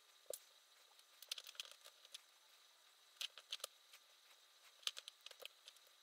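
Faint clicks and light taps of small M3 screws and a hex key being handled and driven into a 3D-printed plastic gear, coming in a few short clusters.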